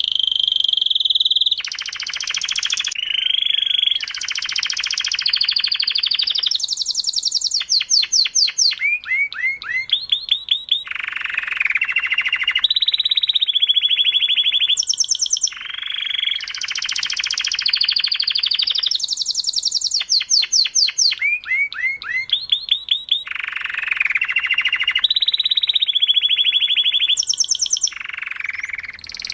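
Domestic canary singing a long continuous song of fast trills and rolls, its phrases changing every second or two, some of them rapid runs of sweeping notes. The same run of phrases starts over about halfway through.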